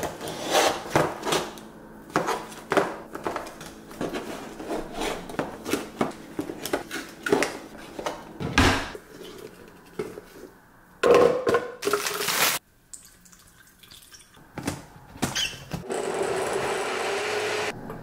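Kitchen prep: a run of knocks, clicks and rustles as things are handled and set down on the counter, then a personal blender running steadily for about two seconds near the end.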